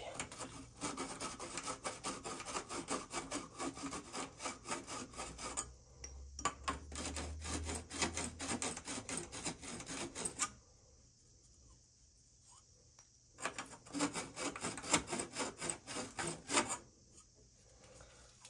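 The end of a copper pipe being scoured by hand with an abrasive cleaner, cleaning the metal for a soldered joint. Quick rubbing strokes come in runs, with a pause of about three seconds past the middle and a shorter one near the end.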